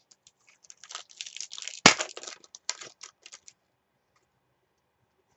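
Trading cards handled and flicked through by hand: a quick run of papery rustles and clicks with one sharp snap about two seconds in, stopping after about three and a half seconds.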